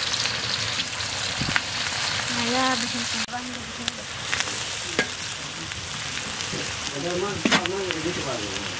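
Sliced red onions sizzling in hot oil in a large wok, with a spatula stirring them and knocking and scraping against the pan in scattered sharp clicks.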